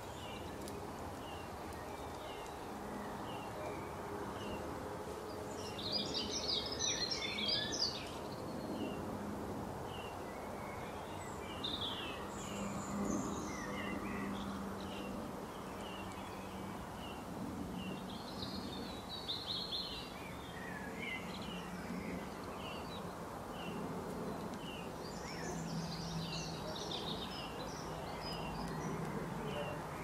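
Birds singing and calling: short high chirps repeated steadily, a little more than once a second, broken four times by bursts of busier, fuller song. A low steady hum runs underneath.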